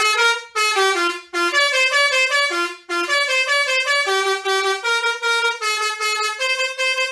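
Basuri telolet truck horn playing a quick tune of short stepping notes. The notes come in brief phrases for the first few seconds, then run on without a break from about three seconds in.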